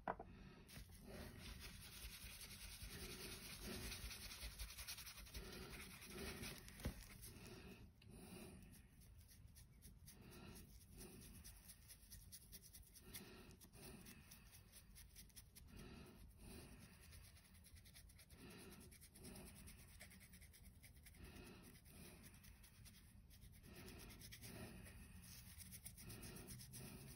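Faint, quick scratching of a stiff dry brush rubbed back and forth over a 3D-printed token's raised surface as rust paint is dry-brushed on.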